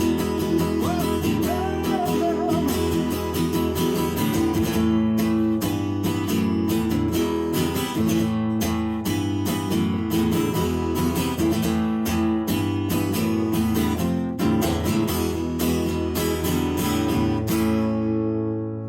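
Acoustic guitar strummed in a steady rhythm, playing out the end of the song, with the strumming stopping near the end and the last chord left ringing.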